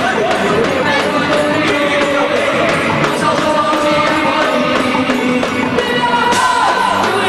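Festa junina music for a quadrilha dance: a loud, steady song with singing over the band and percussion.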